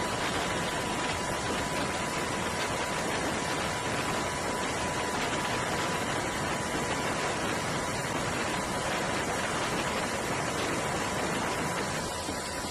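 Steady rushing noise of wind and sea aboard a ship under way, even and unbroken, with a faint steady high tone running under it.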